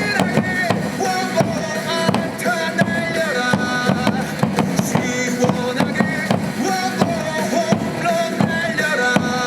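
Stadium cheer music played loud over the loudspeakers: a melody of held notes over a steady drum beat.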